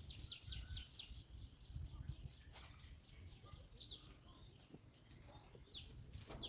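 Outdoor ambience: a bird calling in quick runs of short falling chirps, over a steady high-pitched insect drone and a low rumble.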